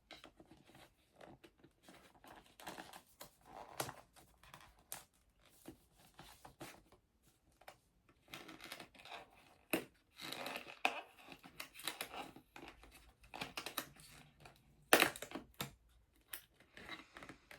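Hands handling product packaging: scattered rustling, tearing and small clicks as a seal or box is worked open, with one sharper knock about 15 seconds in.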